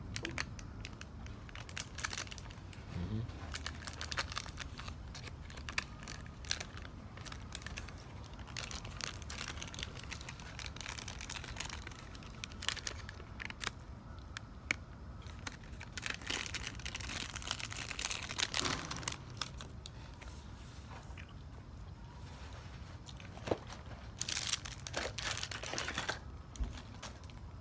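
Plastic fruit snack wrappers crinkling and tearing, with chewing and small mouth clicks in between. A louder spell of crinkling comes near the end.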